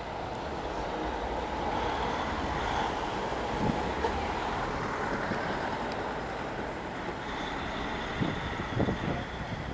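DAF XF truck tractor unit driving slowly past, its diesel engine and tyres making a steady rumble amid street traffic noise, with a few brief low thumps near the end.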